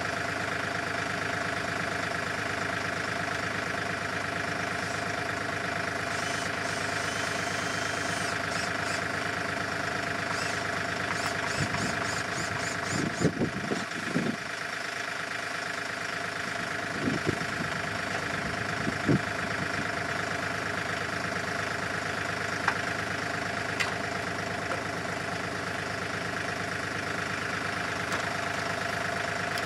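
Engine idling steadily, with a handful of short knocks and clatters about halfway through.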